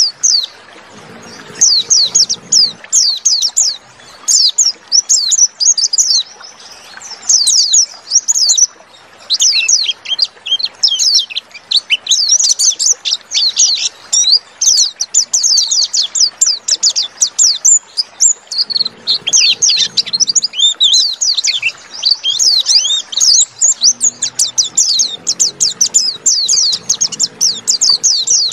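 White-eye (pleci) singing a rapid, almost unbroken twittering song of high chirps, pausing only briefly a few times. It is a loud, full 'ngalas' song of the kind used as a lure to trigger other pleci to sing.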